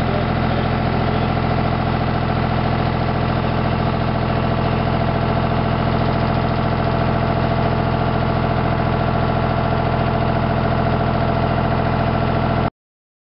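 Compact tractor's engine running steadily at a constant speed while towing a two-row transplanter, then cutting off suddenly near the end.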